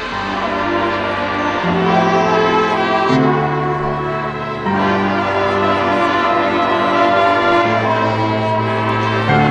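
High school marching band playing long held brass chords that move to a new chord every one to three seconds.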